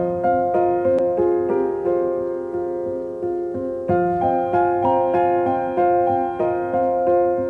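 Background piano music: a gentle melody of notes struck at an even pace, about three a second, each fading away.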